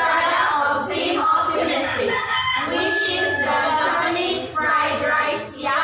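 A group of women's voices in chorus, several at once, in phrases broken by short pauses about two seconds in and again near the end.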